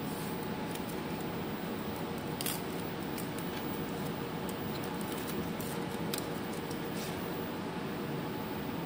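Adhesive tape and its backing strip crinkling and crackling as the tape is peeled and pressed around the edge of a 3D printer's LCD screen: scattered small sharp clicks over a steady hum.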